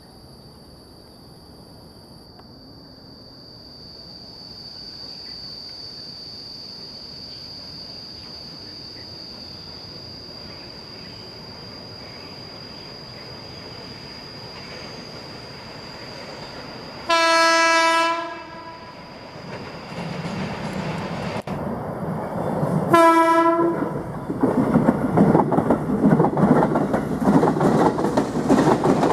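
A KRL Commuter Line electric train, an ex-JR 205 series unit, sounds its horn twice as it approaches, a one-second blast then a shorter one, then rolls past close by with loud rattling wheels on the rails.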